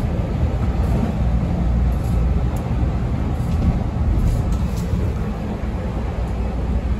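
Interior running noise of a CTA 5000-series rapid-transit railcar in motion: a steady low rumble from the wheels on the rails and the running gear, with a few faint high clicks.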